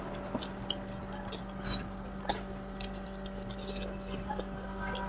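Pani puri being eaten: soft chewing with a few brief crunches of the crisp puri shells, over a steady low hum.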